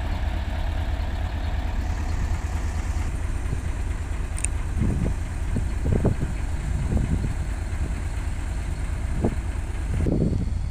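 Heavy diesel engine of the excavator or the stuck dump truck running steadily with a deep low rumble, with a few short louder surges in the middle and near the end. A brief sharp click sounds about four and a half seconds in.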